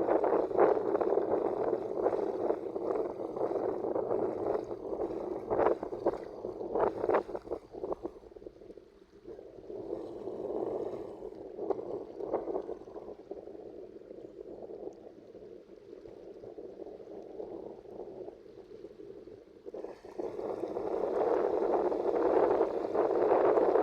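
Sea water splashing and lapping in uneven surges. It is louder at the start, dies down for a stretch in the middle, and swells again near the end.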